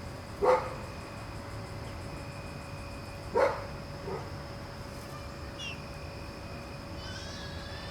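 A dog barks twice, short single barks a few seconds apart, with a softer one after the second. A small bird chirps briefly near the end.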